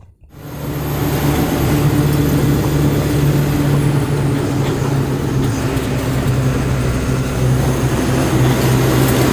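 Truck engine and road noise heard from inside the cab while driving, a steady low drone that cuts in suddenly just after the start.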